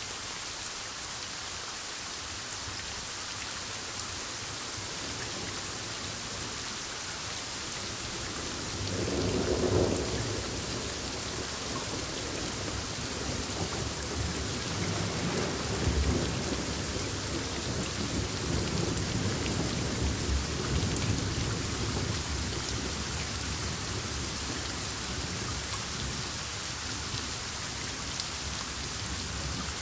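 Thunderstorm with steady heavy rain. A thunderclap comes about nine seconds in and rolls on as a rumble, with another peak a few seconds later, then dies away under the rain.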